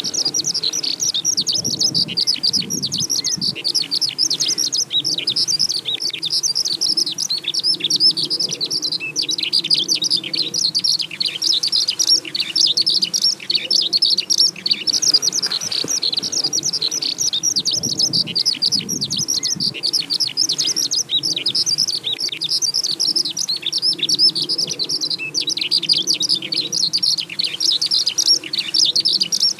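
Eurasian skylark singing its long, unbroken song-flight song, a fast, continuous stream of high warbling chirps and trills without pauses.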